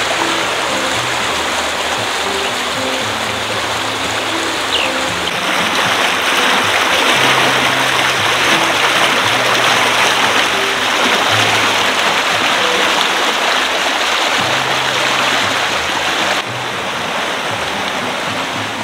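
Steady rush of a flowing stream, with instrumental background music of short held low notes over it. The water gets louder about five seconds in and drops back near the end.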